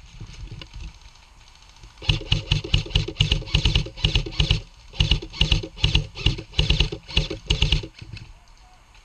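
Airsoft electric gun firing on full auto in a string of short rapid bursts, about eight in a row, starting about two seconds in.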